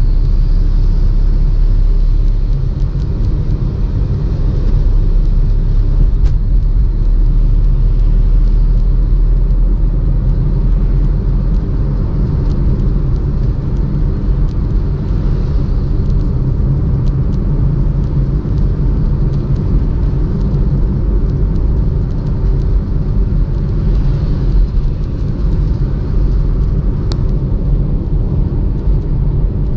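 Steady low rumble of a car driving along a paved road, engine and tyre noise heard from inside the car, with a few faint clicks.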